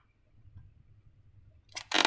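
Near silence, then near the end two quick, loud, noisy bursts from slime and a balloon being handled.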